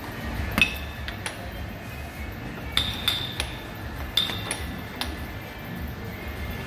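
Air hockey mallet and puck clacking: sharp plastic knocks as the mallet strikes the puck and the puck hits the table's rails, irregular, some in quick pairs.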